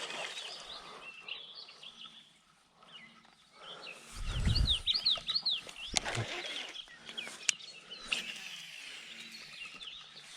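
Outdoor ambience with birds chirping; about four seconds in, a quick run of rising-and-falling bird chirps, together with a brief low rumble. A few sharp clicks follow later.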